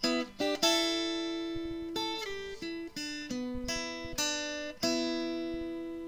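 Music: an acoustic guitar picking a slow run of single notes, each ringing and dying away, with the last note left to ring out.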